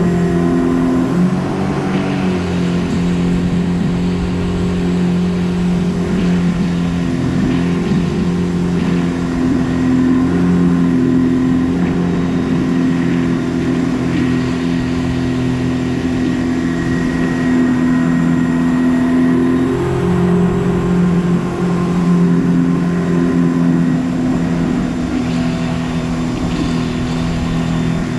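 Jet boat engine running steadily while the boat is under way, over a rushing haze of water noise. The engine pitch shifts slightly about two seconds in and again around twenty seconds in.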